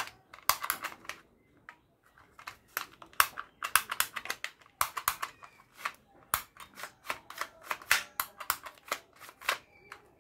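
Plastic toy revolver clicking as it is worked by hand: sharp, irregular plastic clicks, a few a second, with short pauses between runs.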